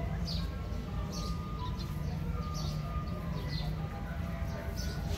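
Small birds chirping: short, high chirps repeating about once or twice a second over a steady low hum.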